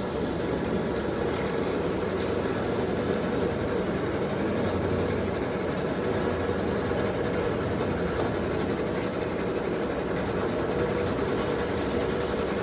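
Steady, continuous mechanical rumble and rattle with no breaks.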